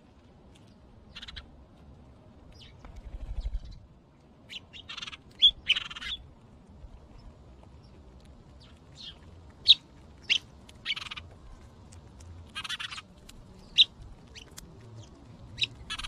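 House sparrows chirping: scattered single sharp chirps, several of them loud. Between them come a few short noisy rushes.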